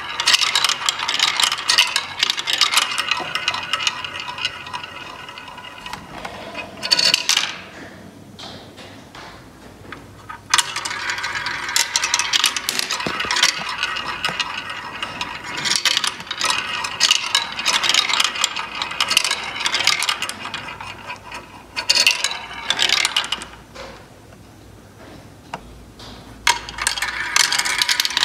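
Small balls clattering and clicking as they roll and drop through a ball-drop toy's tracks, in long runs of rapid clicks broken by a few short lulls.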